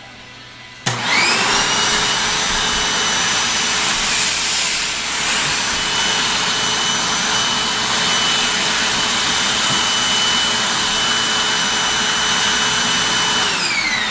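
Vacuum cleaner switched on about a second in, its motor whine rising quickly to full speed and then running steadily. Near the end it is switched off and the whine falls away as the motor spins down.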